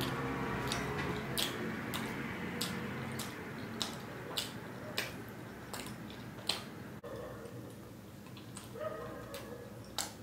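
Close-miked chewing of a mouthful of food with the mouth closed: soft wet mouth clicks and smacks, about one or two a second, with a low hum in the first few seconds.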